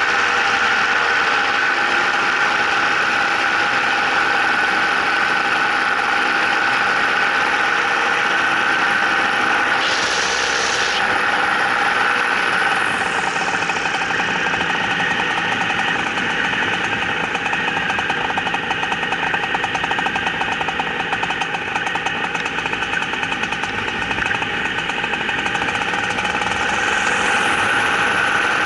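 An engine running steadily throughout, with a brief hiss about ten seconds in.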